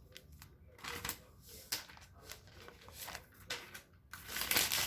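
Handling noises of a laptop and its box and packaging being unpacked: scattered light taps and rustles, with a louder stretch of rustling near the end.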